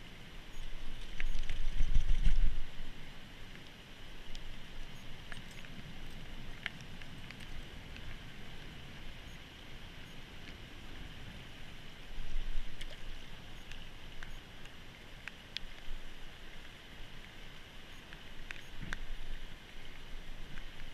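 Steady rush of a shallow river flowing, with wind buffeting the microphone in gusts, loudest about two seconds in, and a few faint scattered clicks.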